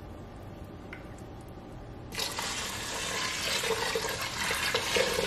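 Water poured from a clear measuring pitcher into the empty-sounding stainless steel inner pot of an electric pressure cooker, a steady splashing pour that starts about two seconds in.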